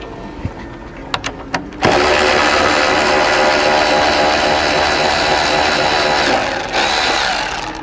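A few light metal clicks as the socket is fitted. Then a Milwaukee cordless electric ratchet runs steadily for about four and a half seconds, backing out a radiator fan-shroud bolt, winds down, and gives a short second burst near the end.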